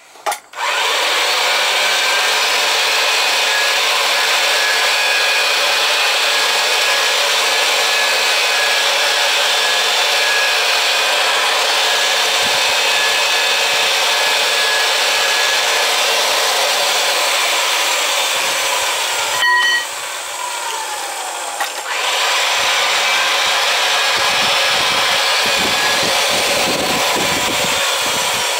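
Oster power pipe threading machine running, spinning a steel gas pipe while its wheel pipe cutter is screwed down to cut the pipe through. The steady machine noise dips briefly about twenty seconds in, then picks up again.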